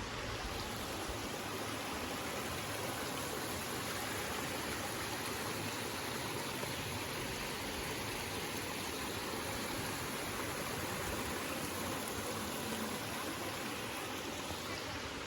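Steady rush of water from a waterfall and its stream, an even noise with no change throughout.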